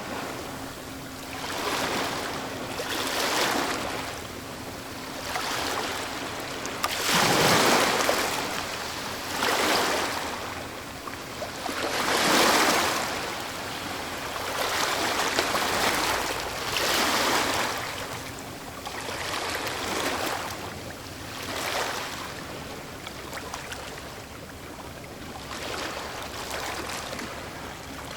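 Ocean waves breaking on a beach one after another, each a surge of surf that swells and falls away over a few seconds. The biggest breakers come about seven and twelve seconds in.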